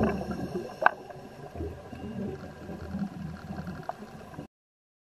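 Underwater sound picked up by a submerged camera: muffled low rumbling and gurgling, with two short sharp clicks. It cuts off suddenly near the end.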